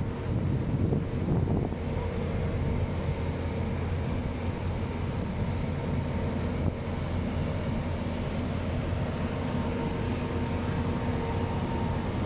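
Aircraft engine running with a steady drone and a few constant humming tones, holding level with no rise or fall in pitch.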